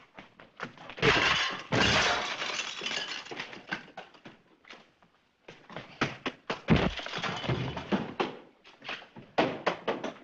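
Crashing and breaking glass, with a long crash about a second in, a second one near seven seconds, and scattered knocks and clatter between.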